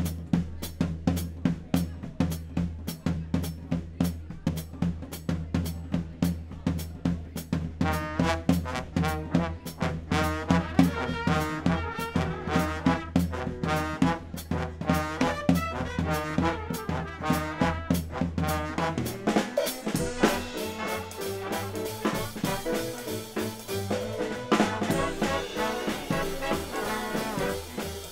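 Big band playing swing music: trombones and trumpets over a drum kit with a steady beat. The arrangement changes about two-thirds of the way through.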